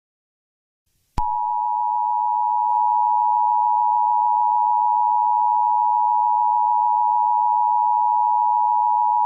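A single steady electronic beep tone, the attention tone of a mock emergency broadcast. It starts abruptly about a second in, after silence, and holds at one pitch without a break.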